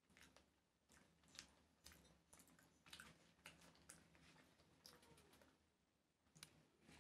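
Faint, irregular wet clicks of someone eating rice by hand off a banana leaf, a few a second, easing off briefly near the end.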